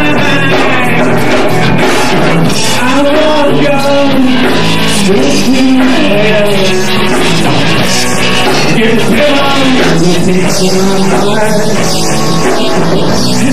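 Rock band playing live: guitars, bass guitar and drums, with a man singing lead into the microphone over them.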